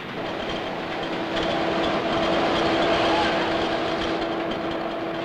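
Dam construction cableway running as its concrete bucket travels on the cables: a steady machinery rumble with a droning hum. It swells about a second and a half in and eases off toward the end.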